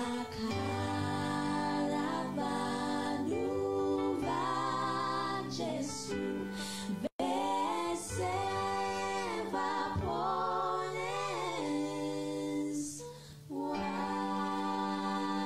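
A female vocal trio singing a gospel song in close harmony into handheld microphones, with long held notes between phrases. The sound cuts out for an instant about seven seconds in.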